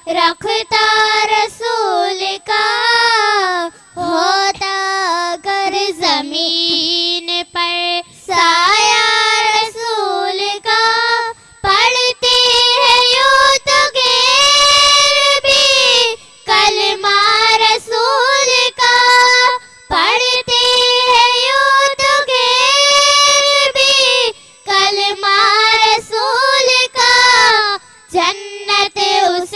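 Young girls singing a naat (an Urdu devotional song in praise of the Prophet) into microphones, without accompaniment, in long held, wavering phrases broken by short pauses between lines.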